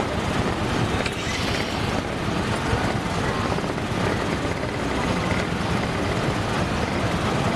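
Steady street noise from bus and traffic engines running, with no breaks.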